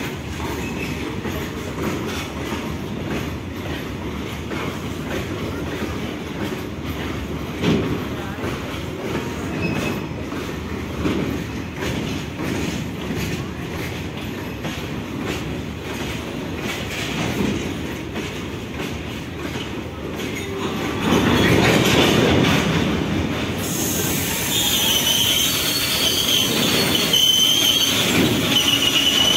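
Goods train of open box wagons rolling past, a steady rumble with a running clickety-clack of wheels over rail joints. About two-thirds of the way through it grows louder, and a high wavering wheel squeal sets in and carries on to the end.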